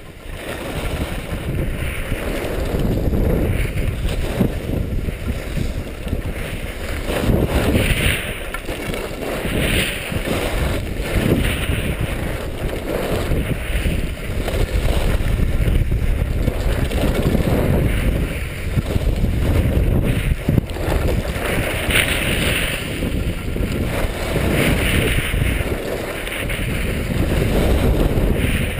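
Wind rushing over a GoPro action camera's microphone while skiing downhill, mixed with the hiss of skis sliding on packed snow, swelling and fading every few seconds.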